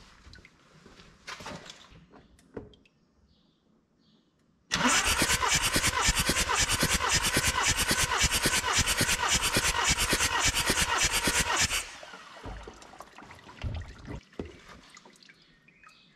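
VW Transporter T5 2.5 TDI five-cylinder diesel turned over on its starter motor for about seven seconds during a compression test on cylinder number one, with a fast, even pulsing as each cylinder compresses; it cranks without starting and stops suddenly. Light handling clicks come before and after.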